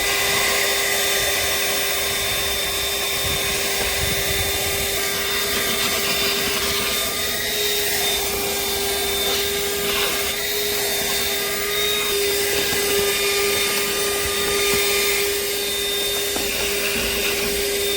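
Handheld 12 V car vacuum cleaner running in vacuum mode: a steady motor whine over an even rush of air, stopping abruptly at the end.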